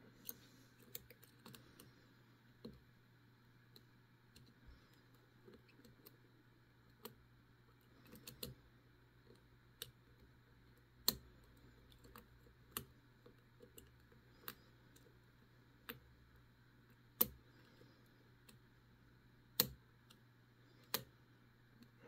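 Lock pick and tension wrench working the pin tumblers of an old all-brass Corbin padlock: small sharp metallic clicks at irregular intervals, a few of them louder, as pins are lifted and set afresh after a suspected overset pin. A faint low hum sits underneath.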